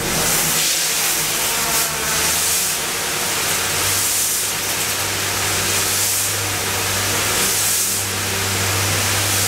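Water jets of a DW55-IO drum washer spraying a 55-gallon drum and the cabinet walls: a loud, steady hiss of spray that swells and eases every second or two. A steady low machine hum runs underneath.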